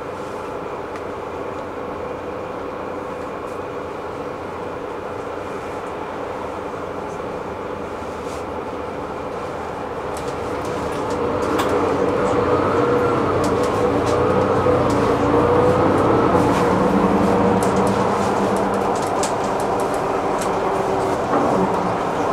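Inside a moving city bus, its drivetrain gives a steady hum with light rattles. About ten seconds in it grows louder, and a whine rises and falls in pitch.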